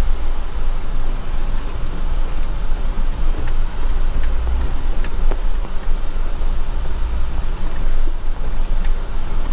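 Off-road vehicle driving slowly down a rocky dirt trail: a steady low rumble of engine and tyres with gravel crunch, and a few sharp ticks from stones, about three or four seconds in and again near the end.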